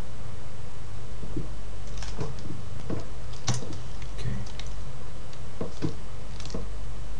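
Irregular clicks of a computer mouse and keyboard, scattered from about two seconds in, over a steady low hum.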